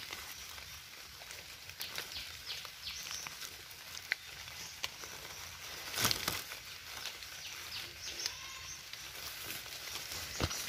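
Faint rustling and crackling of leaves and forest-floor litter as plants are pushed aside by hand, with a louder rustle about halfway through and another near the end. Quick high chirps come in short runs in the background.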